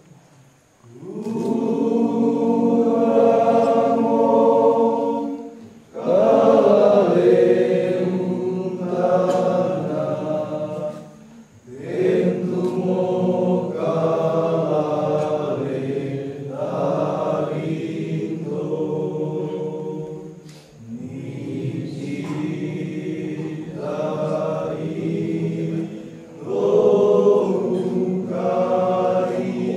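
Men's voices chanting together in a Minahasa ritual prayer chant of the mengundam healing rite, sung in long held phrases of about five seconds with brief breaks between them.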